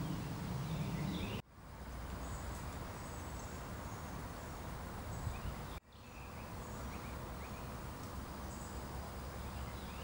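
Outdoor ambience: a steady rush of background noise with scattered short bird chirps. The sound drops out abruptly twice, about a second and a half in and again near six seconds.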